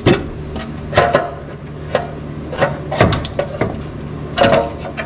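Irregular sharp clicks and knocks of hand tools and metal parts being handled on an engine's top end, some in quick clusters, over a steady low hum.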